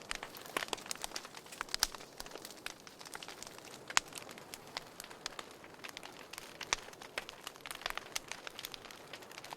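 Wood fire burning in a fireplace, crackling steadily with irregular sharp pops, the loudest about two, four and seven seconds in.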